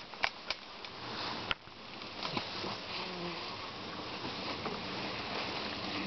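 Honeybee swarm buzzing steadily, after a few sharp clicks and rustles in the first second and a half.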